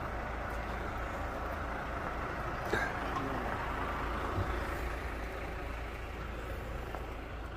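Steady low rumble with a hiss of background noise, and a couple of faint knocks.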